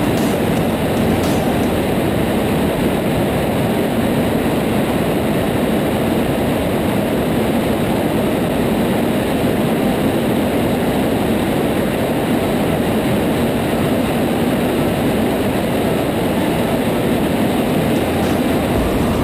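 Aeroprakt A22 Foxbat light aircraft in cruising flight: the drone of its engine and propeller mixed with wind rushing over the wing-mounted camera, steady and unchanging.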